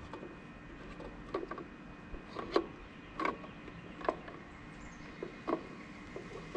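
Hands fitting a small wireless camera and its cable inside a wooden birdhouse: a series of irregular light knocks and clicks, five or six in a few seconds.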